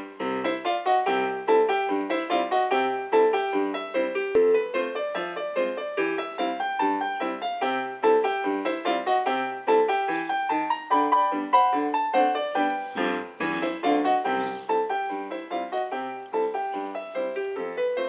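Piano playing a continuous stream of quick notes without a break.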